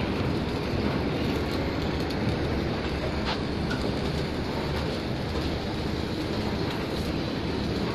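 CNC rebar cage forming machine running: a steady mechanical rumble and rattle as the steel rebar cage turns on its rollers, with a couple of sharp metallic clinks.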